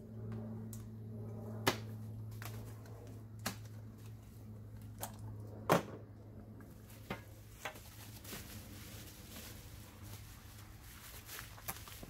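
Scattered clicks and light knocks of small hardware and packaging being handled while unpacking a skid plate kit, the sharpest about halfway through. Under them runs a steady low hum that stops at about the same moment.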